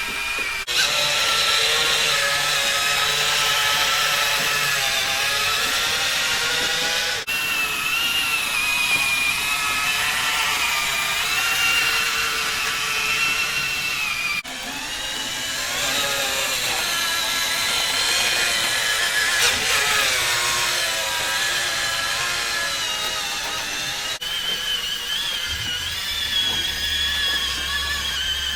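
Whine of radio-controlled construction machines' electric motors, their pitch rising and falling as the machines work. The sound breaks off and restarts abruptly a few times.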